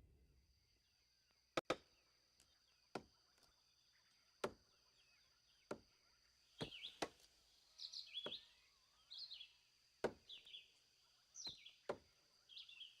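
Quiet forest soundtrack: sharp knocks at irregular intervals one to two seconds apart, with short bird chirps joining from about halfway in over a faint steady high tone.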